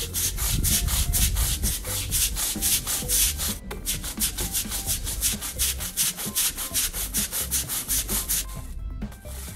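A stiff brush scrubbing garden paving slabs with rapid back-and-forth strokes, about four to five a second, easing off near the end.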